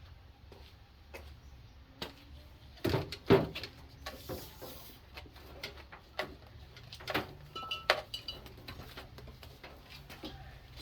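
Irregular metal clanks and knocks of hand tools and mower parts being handled, the loudest a quick cluster about three seconds in and single hits near seven and eight seconds, with a few short high chirps around the eight-second mark.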